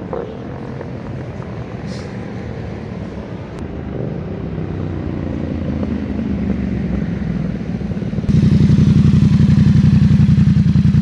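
A 2017 Yamaha MT-07's parallel-twin engine through a Zard full exhaust system, approaching from a distance and growing steadily louder. About eight seconds in, the sound cuts to the same engine running close by, much louder, with a rapid, even pulse.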